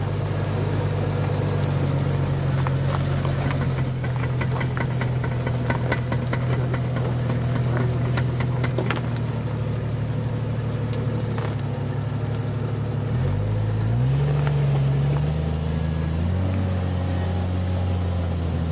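Jeep Cherokee's 4.0-litre straight-six engine pulling the vehicle slowly over a dirt track, a steady low drone with scattered clicks in the first half. About two-thirds of the way through, the revs rise and hold higher as it climbs a steep slope.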